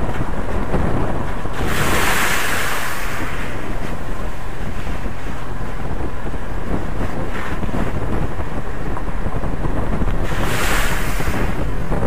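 Wind buffeting the microphone of a camera on a moving vehicle, a steady rumble, with two louder hissing rushes, about two seconds in and again near the end.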